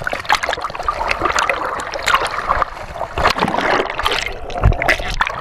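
River water splashing and gurgling around a camera held at the surface and dipped under it, in a dense run of small sloshes and bubbling. A dull low thump comes near the end.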